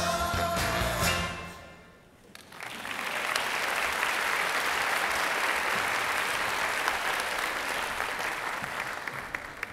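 Music fades out at the end of a song, and then an audience applauds steadily for about six seconds, thinning near the end.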